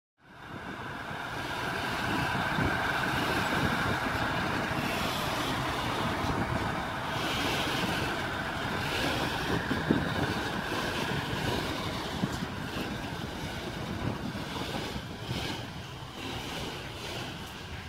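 SM42 diesel-electric shunting locomotive running as it hauls a tank wagon and open coal wagons, with the wagon wheels rolling and clicking on the track. The sound fades in at the start and slowly grows fainter as the train draws away.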